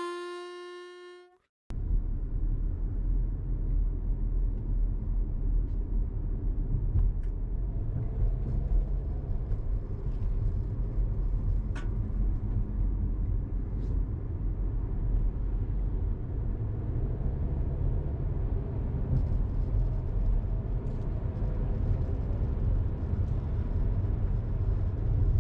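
A held pitched tone fades out in the first second and a half, and after a moment of silence comes the steady low rumble of road and engine noise heard inside a moving car's cabin.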